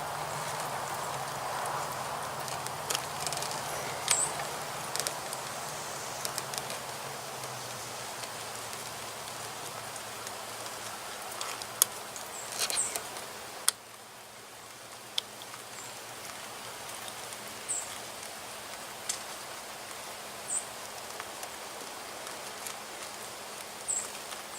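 Hands working the red wiring connectors behind a motorcycle headlight: faint rustling and small plastic clicks over a steady outdoor background hiss, with sharper clicks about twelve and fourteen seconds in. Short high chirps come every few seconds.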